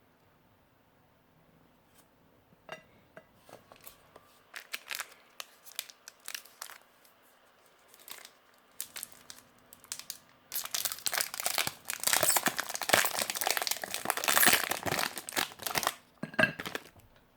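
Plastic and foil ration packaging being handled: scattered crackles and clicks, then after about ten seconds a stretch of dense, much louder crinkling that stops suddenly near the end.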